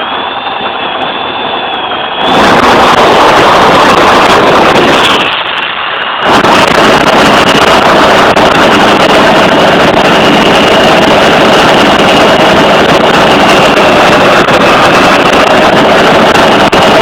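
F-16 fighter jet's engine running very loud and steady: heavy noise with a constant high whine. Twice it briefly goes dull and muffled, losing its top end.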